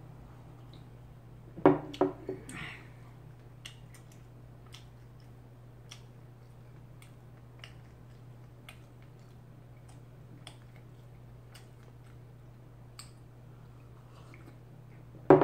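A ceramic mug set down on a wooden table: a pair of sharp knocks about two seconds in, then another near the end. In between, faint ticks about once a second over a steady low hum.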